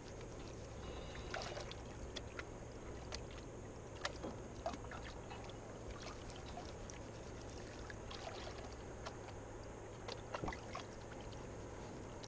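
Gold pan being swirled and dipped in shallow river water: irregular sloshing and small splashes, with short clicks throughout.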